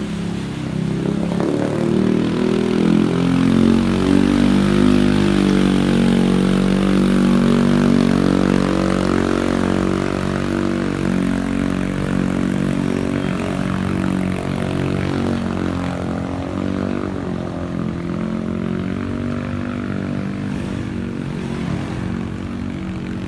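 Several motorbike and car engines running at once, their pitches shifting as they idle and rev in slow traffic at the edge of floodwater, over a steady noisy hiss.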